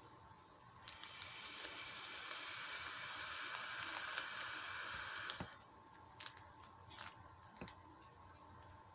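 Plastic parts bag rustling and crinkling in a steady hiss for about four and a half seconds, then a few small clicks.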